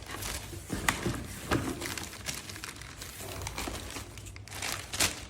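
Packaging rustling and crinkling as a vacuum cleaner accessory is handled and unwrapped, with a few sharp clicks along the way.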